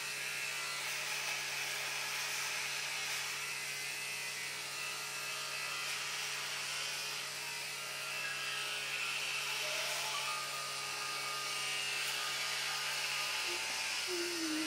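Steady buzzing hum and hiss from a pot of oyster mushrooms boiling on an induction hob; the low hum cuts off near the end as the pot comes off the hob.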